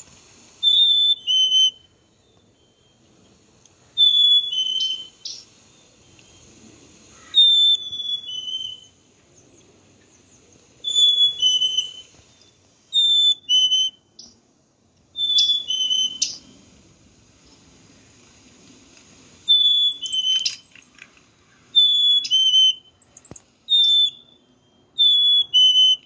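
Black-capped chickadee singing its two-note 'fee-bee' song, a clear whistle that steps down in pitch, repeated over and over every few seconds. A few short, quick chip notes are mixed in.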